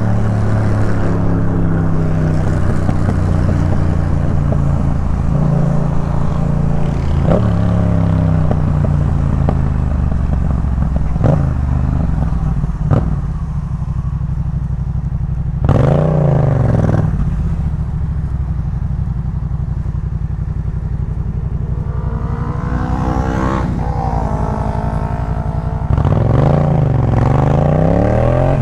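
Yamaha MT-07's parallel-twin engine through a Jeskap K4 aftermarket exhaust, on the move. It holds a steady note, eases to a quieter, lower note around halfway, gives a quick rise-and-fall in pitch, then climbs in pitch under acceleration twice toward the end. A few sharp clicks come in the first half.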